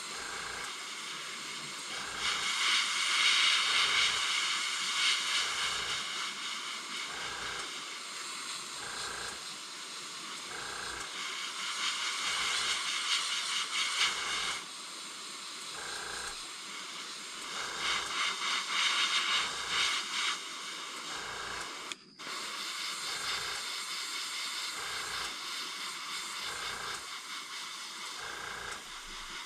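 Airbrush spraying paint: a steady hiss of air that swells in several stretches as the trigger is drawn back, with a faint regular pulse about once a second underneath.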